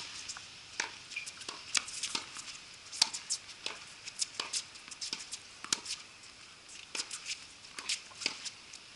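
Tennis rally: a string of sharp, irregular taps from racket strikes on the ball, ball bounces and footsteps on a wet hard court.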